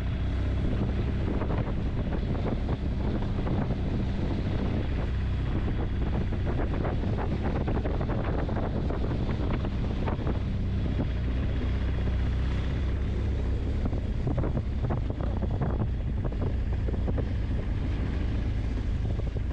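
Wind buffeting the microphone over the steady low rumble of a car driving.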